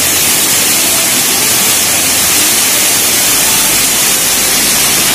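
Waterfall pouring straight down onto a person sitting beneath it: a loud, steady rush of falling and splashing water.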